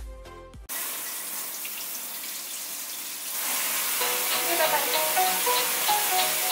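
Kitchen sink tap running: a steady hiss of water that grows louder about halfway through. Light plucked-string background music comes in near the end.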